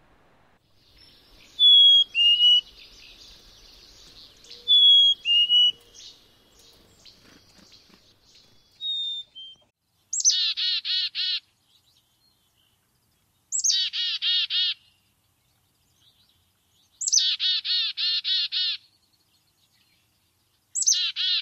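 Black-capped chickadee song and call. First come three clear, whistled two-note fee-bee songs, the second note lower. Then come four chick-a-dee-dee-dee calls, each a short high note followed by a fast run of buzzy dee notes.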